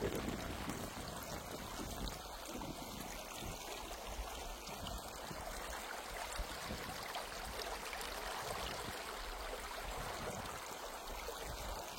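Steady running water, an even rushing with fine flickering splashes.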